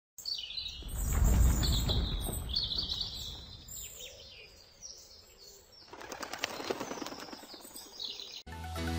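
Small cage finches chirping and calling in many short, high notes, with loud wing fluttering and rustling in the first few seconds and a run of light clicks and rattles later on. Background music starts near the end.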